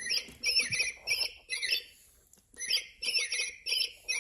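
Electronic bird-like chirping and tweeting from a Hatchimals toy: quick high warbling tweets in two bursts, with a short pause between them about two seconds in.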